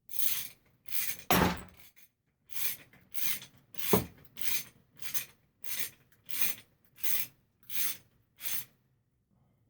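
Ratchet wrench with an 8 mm Allen bit being worked back and forth to tighten the damper (dowel) bolt at the bottom of a motorcycle fork, the pawl rasping on each return stroke. There are about a dozen even strokes, with a sharper knock about four seconds in.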